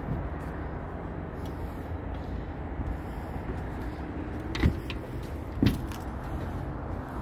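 Footsteps on a plywood subfloor: two dull thumps about a second apart, over a steady low rumble.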